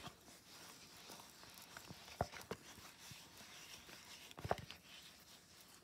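Faint handling of a glycerine-soaked cardboard tube panel being worked between the fingers, with a few sharp clicks, two just after two seconds in and a short cluster about four and a half seconds in.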